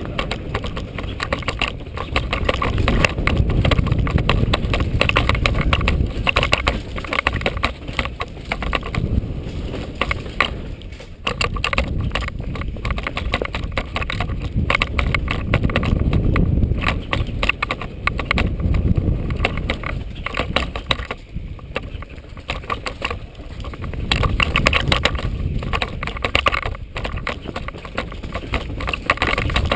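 Mountain bike riding fast down a rough dirt and rock downhill trail: a constant clatter and rattle of the bike and camera mount over bumps, over a heavy rumble of tyres and air that swells and eases every few seconds.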